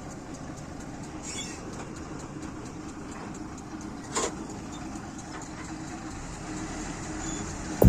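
Steady low rumble of a running engine, with a single short knock about four seconds in.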